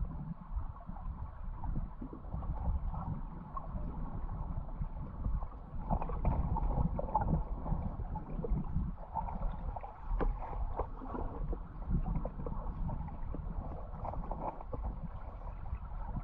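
Underwater river ambience picked up by a submerged camera: a steady low rumble of flowing current with scattered small clicks and ticks throughout, more frequent in the second half.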